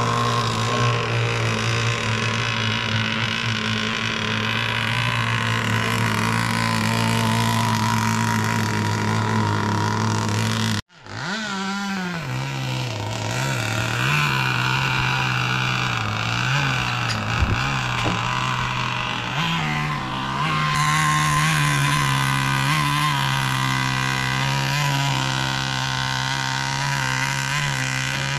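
Small two-stroke chainsaw-type gasoline engine of a radio-controlled powerboat running at steady high revs. About 11 seconds in the sound cuts out abruptly, then the engine is heard again with its pitch rising and falling as the throttle changes.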